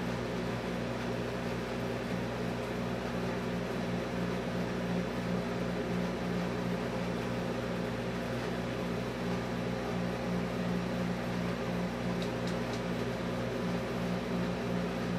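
Steady hum of an electric fan running at a constant level, with a couple of faint ticks near the end.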